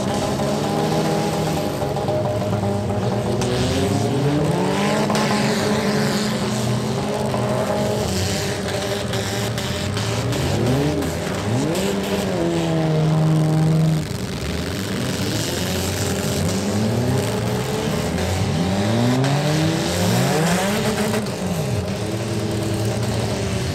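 The engines of several small compact demolition-derby cars rev up and down over each other as the cars push and ram. About halfway through, one engine is held at high revs for about two seconds, then drops off suddenly.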